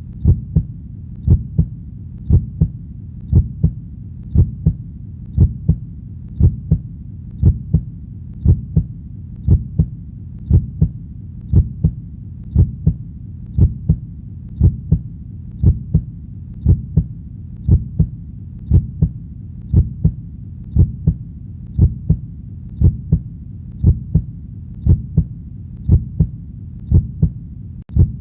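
A human heartbeat: a steady, even rhythm of paired lub-dub thumps, deep and low, over a continuous low hum between the beats.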